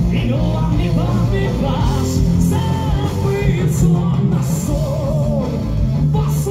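Live rock band playing through a stage PA: amplified electric guitars, bass and drums with cymbals, under a lead singer's vocals.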